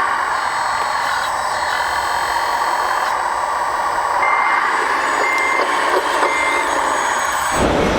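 Reversing beeper of an RC construction model's sound module sounding three short beeps about a second apart, over the steady whir of the model's electric drive. Near the end the sound changes abruptly to a lower rumble.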